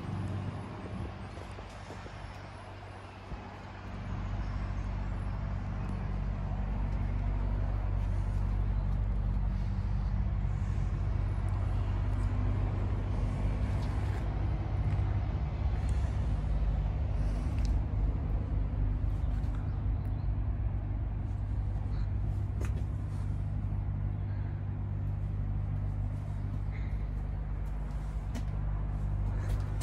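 Diesel engine of a MAN TGS lorry idling steadily, getting louder about four seconds in.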